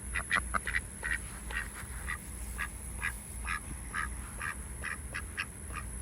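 Ducks quacking in a steady run of short calls, about two a second.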